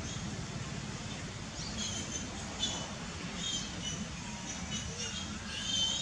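Baby macaque giving a series of short, high-pitched squeaks while it sucks milk from a bottle; they start about a second and a half in and come more often near the end, over a steady low background rumble.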